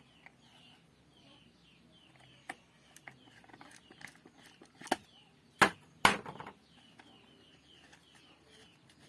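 Plastic cover being taken off a table fan: a few sharp clicks and knocks, the loudest two close together about halfway through.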